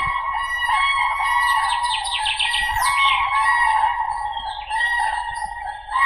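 Common cranes trumpeting: rolling, repeated calls that overlap without a break. A quick run of small-bird chirps comes in about two to three seconds in.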